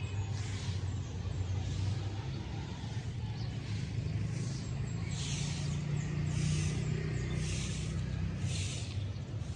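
Motorcycle engine running on the road, its low hum climbing in pitch about four seconds in. In the second half a hiss rises and falls about once a second.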